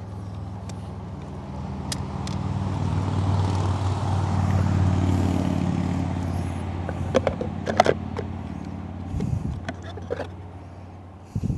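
A motor vehicle running, growing louder toward the middle and fading away again, with a few sharp clicks near the end.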